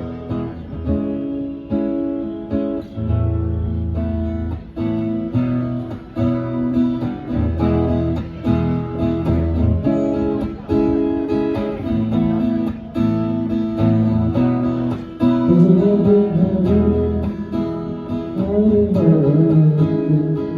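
Live band playing an instrumental passage: strummed guitar chords over low bass notes in a steady repeating pattern. A singing voice comes in about fifteen seconds in.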